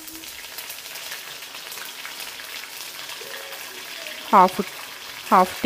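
Curry leaves and tempering spices frying in hot oil in a steel kadai: a steady sizzle with fine crackling, the tempering (tadka) stage of the dish.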